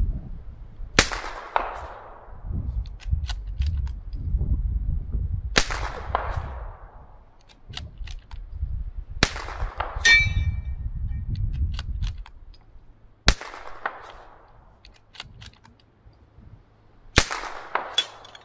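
.22 LR bolt-action target rifle (CZ 457 AT-ONE firing Eley Tenex match ammunition) shooting five times, about four seconds apart, each crack trailing off in a short echo. Just under a second after the third shot, a steel gong rings briefly from a hit.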